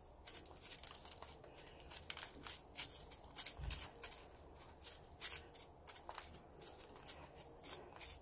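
Faint, irregular scratching and rustling as metal tweezers pick dry potting soil and grit out of a succulent's dried-out root ball over a plastic tray, with loose crumbs falling.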